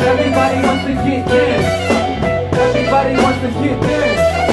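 Live band playing: hollow-body electric guitar and saxophone over bass, keys and drums.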